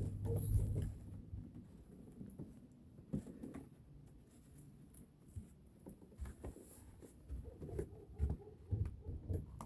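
Faint footsteps and rustling of someone walking, a series of soft irregular low thumps with a few sharper knocks, a little louder in the first second.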